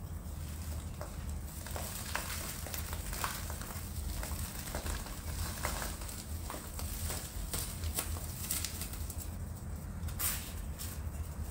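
Soil and potting mix being crumbled by hand from a sancang bonsai's root ball and falling onto a plastic sheet: scattered small ticks and rustles over a steady low hum.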